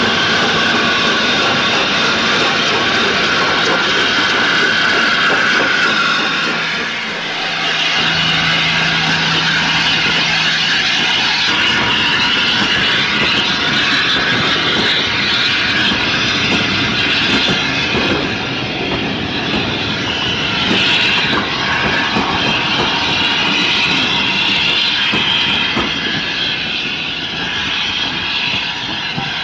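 Locomotives at a railway station: a continuous loud hiss and engine rumble, changing abruptly about seven or eight seconds in.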